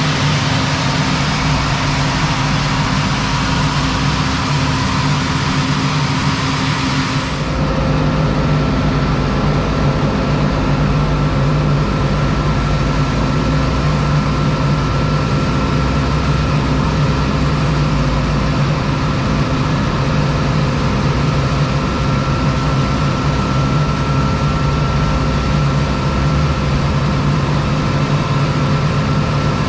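Heavy farm machinery running steadily with a deep engine drone. About seven seconds in, the sound changes abruptly as the higher hiss drops away, then runs on steadily.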